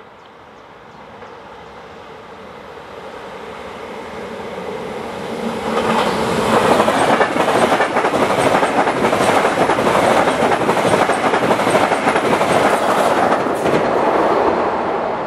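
SBB locomotive-hauled passenger train approaching and passing through the station. The rumble grows over the first six seconds, then comes loud wheel-on-rail noise with many rapid clicks as the coaches go by, easing off near the end.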